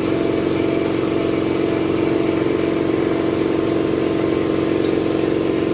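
Vapor blasting machine running steadily: a loud, even mechanical hum with a fast, regular pulse.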